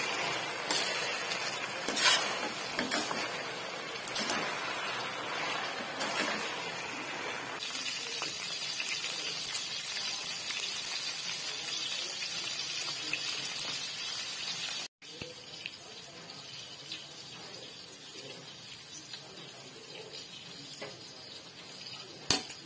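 Pork slices sizzling as they fry in oil in a stainless steel wok, the last of the marinade liquid cooking off, with spatula scrapes and knocks against the pan in the first several seconds. About fifteen seconds in the sizzle drops abruptly to a quieter steady hiss, and near the end a wire strainer clinks against the pan.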